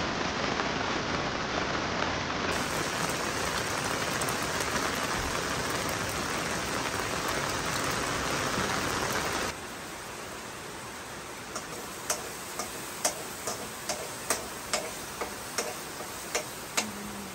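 Steady rain, a dense even hiss. About nine and a half seconds in it cuts to quieter rain, with a run of sharp ticks about two a second near the end.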